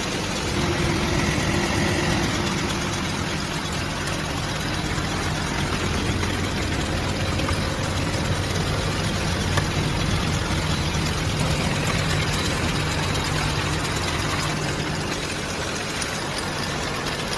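Factory machinery running steadily: a constant low hum under a dense, even mechanical noise.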